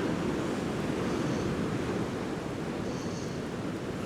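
Sea swell and surf washing against the pier, with wind buffeting the microphone: a steady, even rush of noise.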